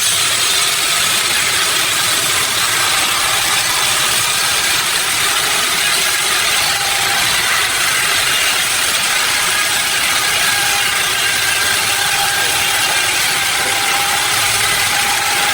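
Sawmill machinery running steadily: a continuous engine-like drone with a hiss in the upper range and faint steady tones, holding an even level throughout.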